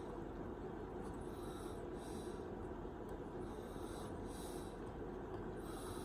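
A person breathing slowly in and out close to the microphone, soft breaths in pairs about every two seconds, over a faint steady hum.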